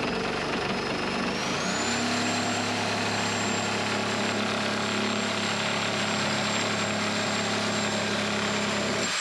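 Bosch Professional reciprocating saw running steadily while it cuts through a timber stud. Its motor whine climbs in pitch about a second and a half in, then holds, and the saw stops right at the end.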